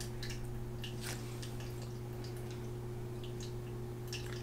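Steady low electrical hum with faint scattered ticks and rustles as a Secretlab Omega gaming chair swivels around with someone seated in it.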